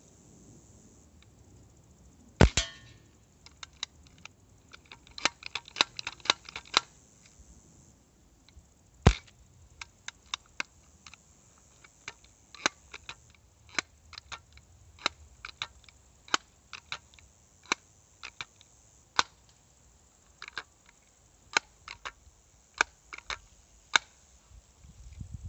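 Two sharp shots from an air pellet gun, about two and a half and nine seconds in, the first followed by a brief echo. Many fainter sharp clicks are scattered between and after them.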